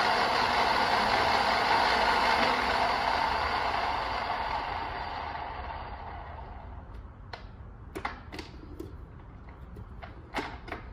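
Rockwell 24-inch geared-head drill press running steadily, then winding down to a stop over a few seconds after being switched off. Several short clicks and knocks follow as its controls and spindle are handled.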